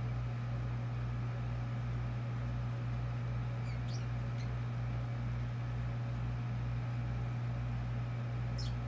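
A steady low hum throughout, with a pet bird's faint, short high chirps about four seconds in and again near the end.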